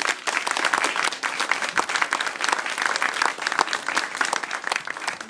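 Audience applauding: dense clapping that begins to thin toward the end.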